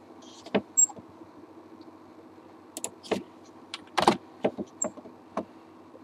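Scattered computer keyboard keystrokes and mouse clicks while editing, a few at a time, with a small cluster about four seconds in, over a steady low hum.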